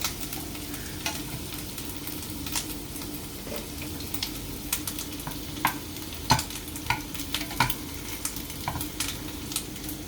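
Meatballs sizzling as they fry in a pan, with irregular sharp clicks and taps of a utensil against the pan as they are turned, over a steady low hum.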